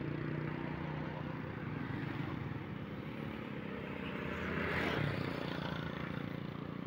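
Steady engine hum, swelling and fading as a motor vehicle passes about five seconds in.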